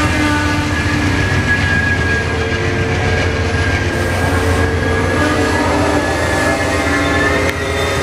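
Amtrak passenger train of bi-level Superliner cars rolling past at close range: a steady loud rumble of wheels on rail, with several thin steady high tones running over it.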